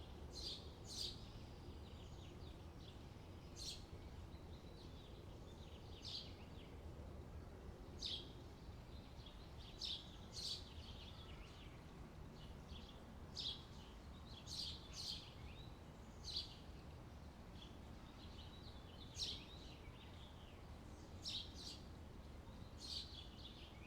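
Small birds chirping: short, sharp high chirps every second or two, over a steady low background rumble.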